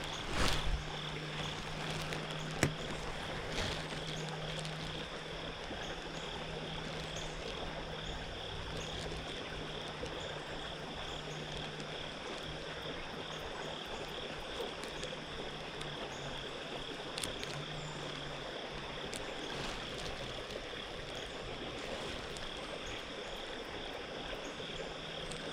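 Pond-side ambience: a steady high-pitched chorus of frogs and insects over an even hiss of light rain. A low steady hum runs through most of it and drops out about two-thirds of the way in, and a few sharp clicks come near the start.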